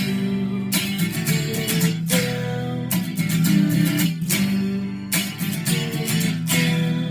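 Acoustic guitar strumming chords in an instrumental passage, with no singing.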